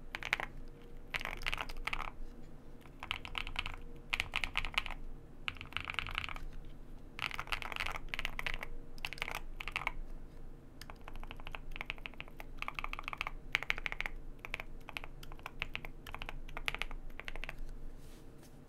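Typing on a Wind Studio Wind X98 mechanical keyboard with lubed (Krytox 105 + 205) and filmed JWK Hoshizora linear switches. The switches are described as having fairly noticeable contact-leaf noise. Quick runs of keystrokes come in bursts of about a second with short pauses between them, and the typing stops near the end.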